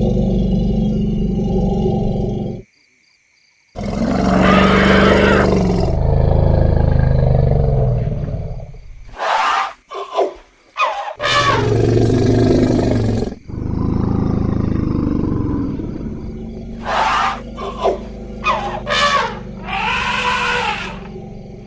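Elephants calling in a string of deep roars and rumbles, short high squeals and arching trumpets. A low steady rumble cuts off suddenly about three seconds in, and after a second of silence the loud calls begin, with several short high calls and a rising-then-falling trumpet near the end.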